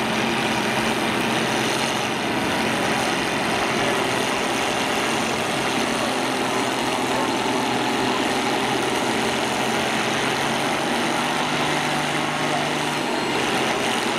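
Engines of old John Deere combine harvesters running steadily at idle, an even drone with no crashes or impacts.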